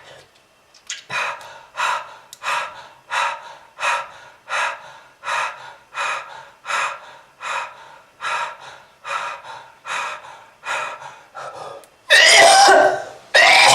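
A person breathes in short, rapid gasps, about three every two seconds, with a wheezy edge. Near the end a loud, harsh coughing fit breaks out.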